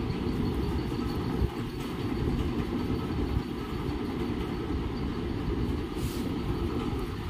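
Steady low rumbling background noise with no distinct event, and a brief soft hiss about six seconds in.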